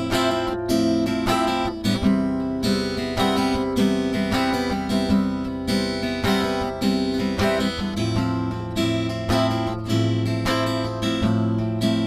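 Background music: a strummed acoustic guitar playing with a steady rhythm.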